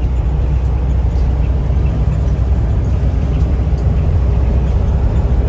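Steady low drone of engine and road noise inside the cab of a Ford E450-chassis Class B motorhome cruising at highway speed.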